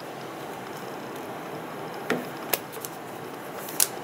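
Hands handling a rolled paper tube: a few short taps and clicks over a steady background hiss, the sharpest about two and a half seconds in and near the end.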